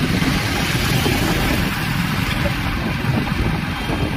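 Motorcycle riding along at road speed: a steady engine and wind rumble on the microphone.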